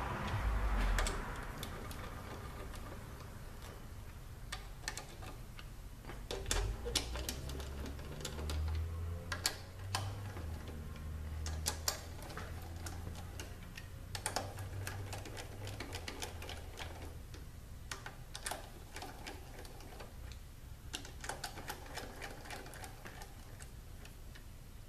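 Hand ratchet clicking in several short runs of quick ticks as the bolts of an automatic transmission valve body are snugged down.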